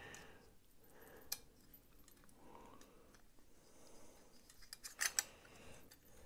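Faint clicks of small metal folding-knife parts being handled as the blade is worked out of the handle: one click about a second in, then a few close together near the end.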